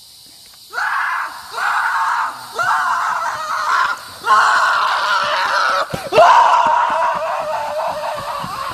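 Loud, repeated screaming: about five long cries in a row, each sliding up at its start and then held, the last one the longest and trailing off. A sharp knock comes between the last two cries.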